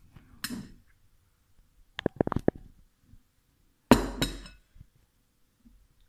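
Metal fork clinking against a ceramic bowl: a small click, then a quick run of ringing taps about two seconds in, and two louder strikes about four seconds in.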